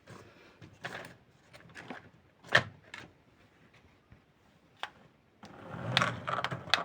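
Scattered light knocks and clicks of objects being handled, one louder knock about two and a half seconds in, then a short stretch of scraping and rustling near the end.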